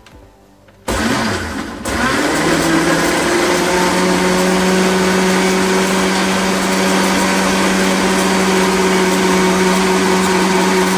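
Electric countertop blender switched on about a second in, blending banana chunks and cherries with a little milk. Its motor pitch rises briefly as it gets up to speed, then it runs steadily.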